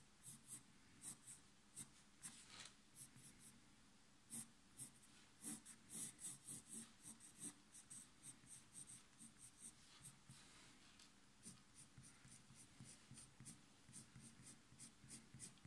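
Colored pencil drawing on sketchbook paper: faint, quick scratching strokes, several a second, with a few short pauses, as hair strands are laid down.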